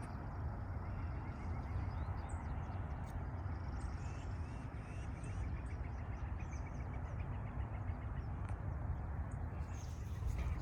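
Open-air ambience: a steady low rumble of wind on the microphone, with faint birds calling in series of short repeated chirps.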